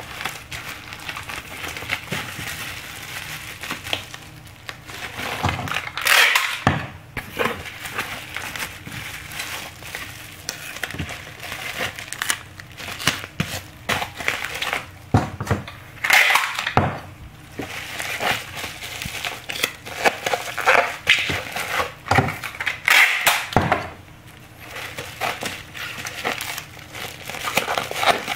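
Bubble wrap crinkling and rustling as it is handled and wrapped around a package, with several louder crackling bursts.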